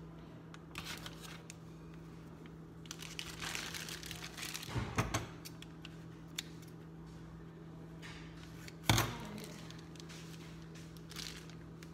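Plastic icing bags crinkling as they are handled, a short snip of scissors cutting a bag's tip, and one loud sharp knock about nine seconds in, over a steady low hum.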